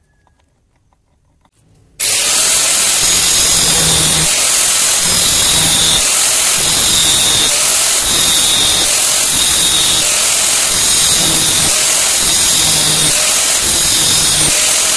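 Angle grinder with a cutting disc slicing into the steel head of an old engine valve held in a vise, starting abruptly about two seconds in and running loud and steady, its high whine wavering about once a second as the disc bites into the metal. Before it, a few faint clinks.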